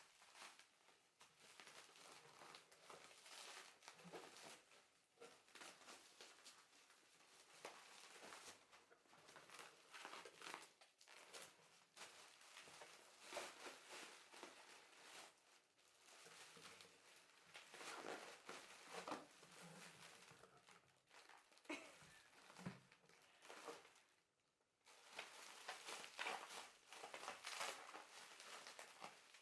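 Faint, irregular crinkling and rustling of packaging being handled and torn, in short bursts with a brief pause near the end.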